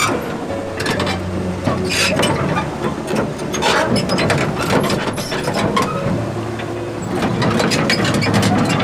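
A heavy diesel engine running steadily under a string of sharp metallic clanks, knocks and rattles.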